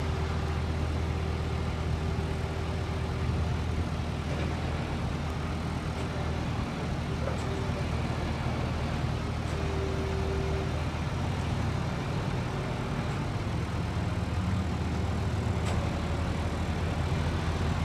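Crane truck's engine running steadily, powering its knuckle-boom crane, as an even low drone with a faint steady whine above it.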